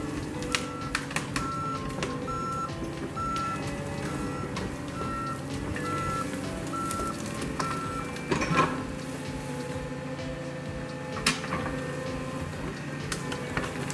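Crawler dozer's diesel engine running, its backup alarm beeping about twice a second until it stops about eight seconds in. Right after, there is a loud burst of cracking and snapping as brush and logging slash break under the machine.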